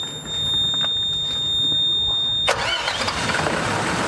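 Large generator running steadily: a low engine hum with a high, steady whine over it. About two and a half seconds in, the sound switches abruptly to a broader, hissier engine noise.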